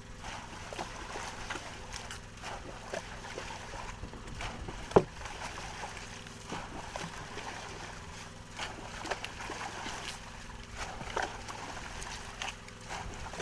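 Water splashing and churning at the surface as a swarm of squid thrashes beside the boat, many small splashes over a steady wash. A single sharp knock stands out about five seconds in, over a faint steady low hum.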